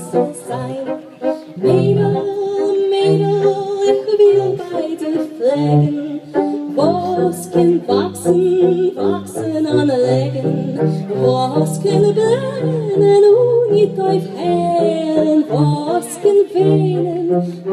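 A woman singing a song into a microphone, amplified through loudspeakers, with vibrato on the held notes, over an instrumental accompaniment with a steady bass line.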